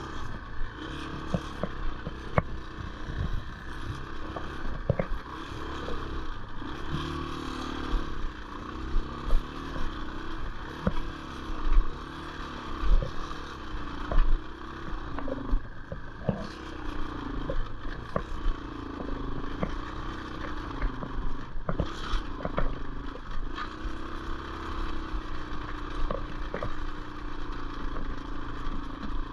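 Yamaha Serow 225's single-cylinder four-stroke engine pulling up a rough, rutted track, its note repeatedly rising and falling with the throttle. Knocks and rattles come through it as the bike bumps over the ground.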